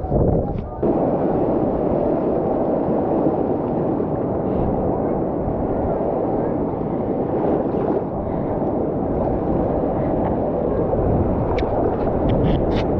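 Muffled, steady rush of sea water sloshing and splashing around a GoPro held at the water's surface while bodyboarding, with a few short splashes near the end.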